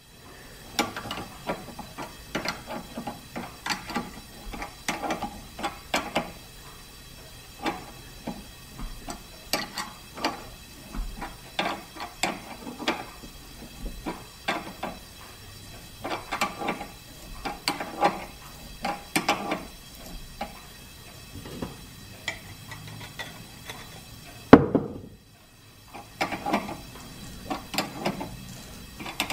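A 3/8-inch coarse-thread tap being turned by hand with a tap wrench, cutting a thread in a part held in a lathe chuck: irregular clicks and creaks as the wrench is worked round. One louder sharp knock comes about 25 seconds in.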